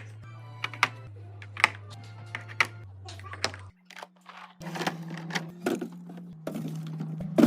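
Background music with sustained low notes, over irregular sharp clicks and knocks of containers and packages being set down while restocking a fridge.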